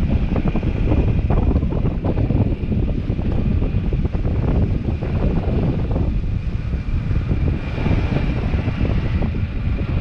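Motorcycle riding along with its engine running, heard under a steady rumble of wind noise on the microphone, and a faint steady high whine throughout.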